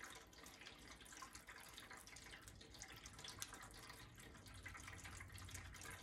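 Near silence with a faint, steady trickle of water and small scattered clicks.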